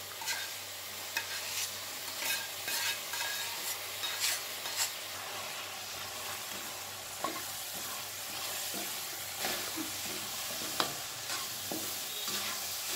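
Wooden spatula stirring a thick, moist semolina-and-colostrum mixture in a stainless steel kadhai, with scattered scrapes and clicks of the spatula against the steel. Under it a steady sizzle as the last of the milk's water cooks off.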